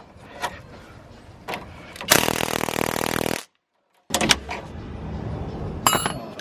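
Hand tools working on a corroded, seized nut on a car's suspension: sharp metal knocks and clanks, with a loud dense buzzing noise lasting about a second and a half near the middle.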